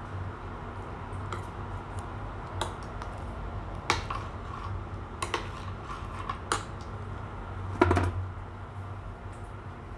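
Metal spoon stirring curry in a stainless steel pot, clinking sharply against the pot about once a second, the loudest clink near the end, over a steady low hum.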